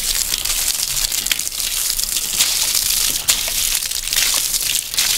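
A thin stream of water pouring into standing water in a tank: a steady splashing hiss, speckled with many small pops from bubbles.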